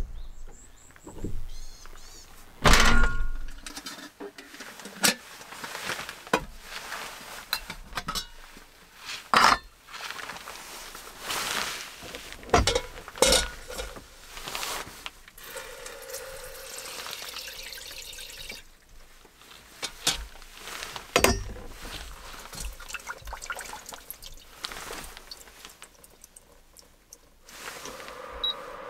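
Water poured from a coiled hose spout into a metal cooking pot, among repeated clunks and knocks of gear being handled. Two short high beeps near the end.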